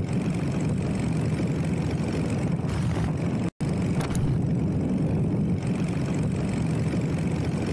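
Motorcycle riding at steady cruising speed: a steady low engine hum under wind and road noise. The sound drops out for an instant about halfway through.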